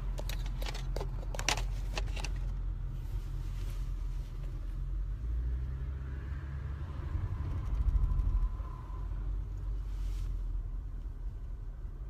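Low, steady rumble of a car driving, heard from inside the cabin, with a few knocks from the phone being handled in the first two seconds.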